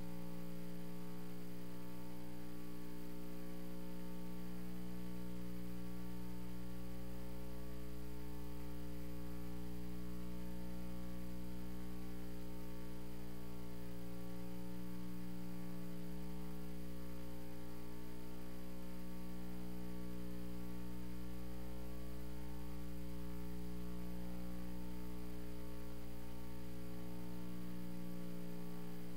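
Steady electrical mains hum with a stack of buzzing overtones, unchanging throughout.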